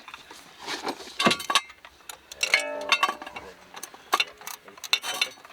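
Scattered metallic clinks and knocks of hand tools and jack on a car's front suspension, with a short pitched squeak about halfway.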